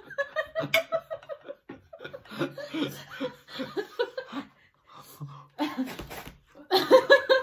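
A man and a woman laughing and chuckling in short bursts, with a louder burst of laughter near the end.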